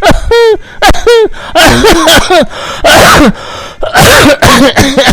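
A man's voice making dramatic vocal sound effects: short strained cries that rise and fall in pitch, and three loud, harsh hissing blasts of breath like coughs or sneezes. They act out a cough-sound attack and a fighter straining against it.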